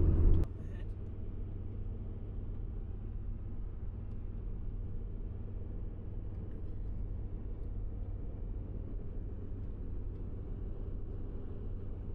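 Steady low rumble of a vehicle's engine and road noise, heard inside the cabin while driving. It is louder for the first half second, then drops to a lower, even level.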